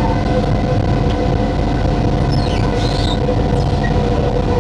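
Singapore MRT train running at speed, heard from inside the carriage: a steady rumble of the wheels on the track with a constant motor hum. A few faint high squeaks come through around the middle.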